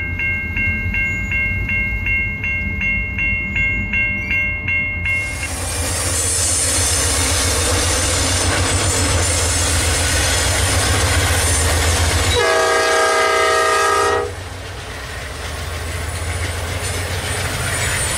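Railroad crossing bell ringing about three strokes a second over the low rumble of a locomotive engine. Then the steady rush of CN freight locomotives passing, with one train horn blast of about two seconds.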